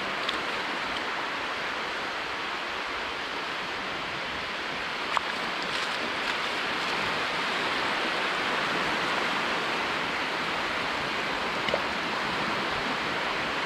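Steady hiss and wash of surf on a sandy shore. There are two small clicks, one about five seconds in and one near the end.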